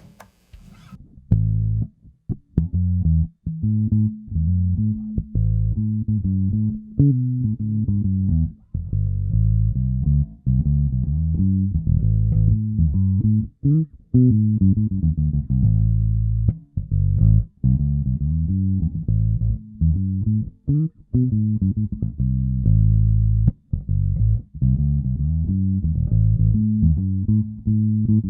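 Nordstrand Acinonyx short-scale electric bass played solo through its second tone-selector preset: a busy line of plucked notes that starts about a second in and keeps going with only brief gaps.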